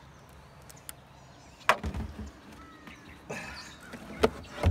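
A few sharp knocks and clatters, the loudest about two seconds in, from a caught channel catfish being handled over a plastic cooler.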